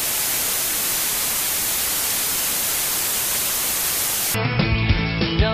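Analogue TV static: a steady, loud white-noise hiss for about four seconds. It cuts off suddenly and gives way to music near the end.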